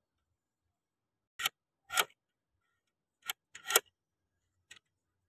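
About five sharp clicks and knocks as the foosball table's fittings are handled, the loudest a little over three and a half seconds in.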